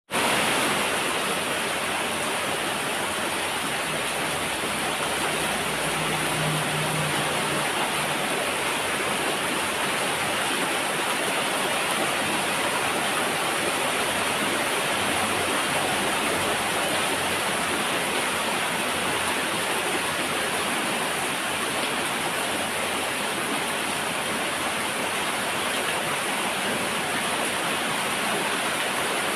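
Steady rain falling: a constant, even hiss that does not change.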